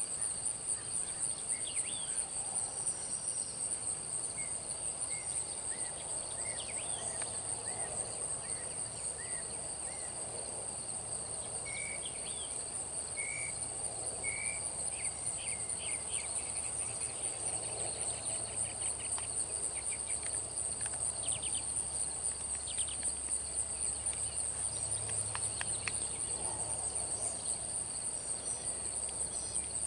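Insects trilling steadily in a high, fast-pulsing drone, with scattered short chirps over it.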